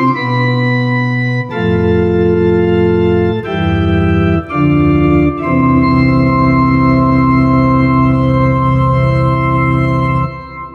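Yamaha Clavinova CVP-403 digital piano playing a bright organ voice: held chords that change several times in the first few seconds, then one long sustained chord that is released about ten seconds in.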